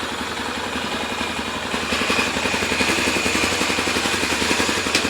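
Honda Tornado 250's single-cylinder four-stroke engine idling through a Coyote two-way exhaust, a quick, even putter that gets a little louder about two seconds in. A sharp click near the end.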